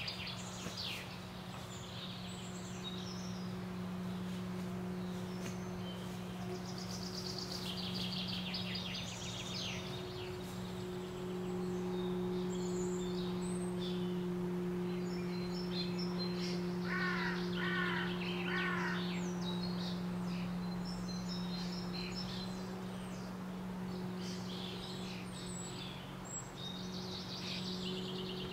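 Woodland birds singing: repeated high trills and chirps, with three short calls in quick succession about two-thirds of the way through, over a steady low hum.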